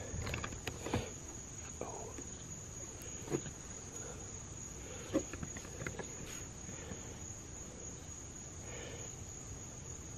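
Crickets chirring in one steady, high-pitched drone, with a few soft knocks now and then.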